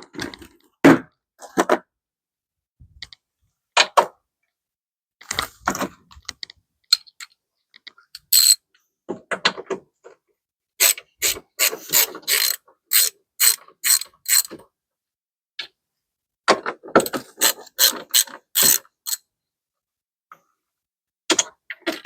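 Socket ratchet clicking in short runs as bolts are undone, about three clicks a second during the longer runs, with pauses between them.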